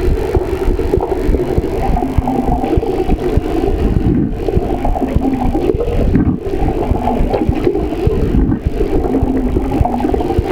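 Heart sounds picked up by a microphone held against the chest, under a loud, steady rumble.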